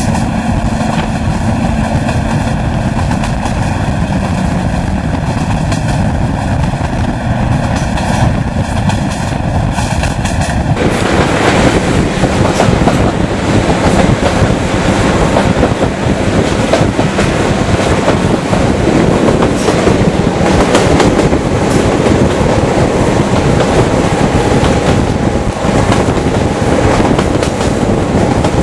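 Class 55 Deltic diesel locomotive's twin Napier Deltic engines working under power, heard from an open coach window behind it, over continuous rail noise with wheels clattering on rail joints. The sound shifts suddenly about eleven seconds in, becoming fuller.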